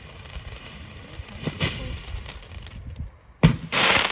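Consumer firework fountain spraying with a steady hiss and light crackling, then a sharp bang about three and a half seconds in, followed at once by a loud rushing burst.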